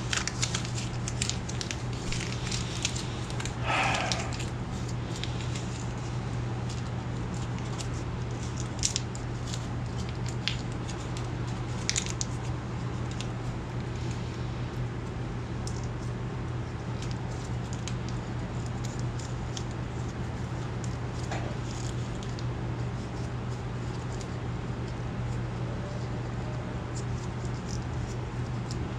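Steady low room hum with scattered light clicks of computer keyboard typing, most of them in the first twelve seconds, and a brief higher-pitched noise about four seconds in.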